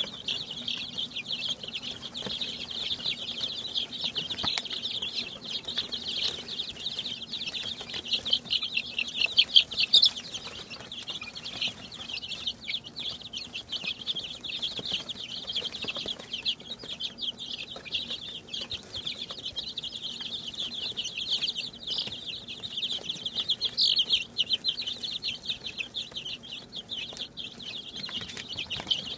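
A brood of week-old chicks peeping continuously, many short high chirps overlapping into an unbroken chorus.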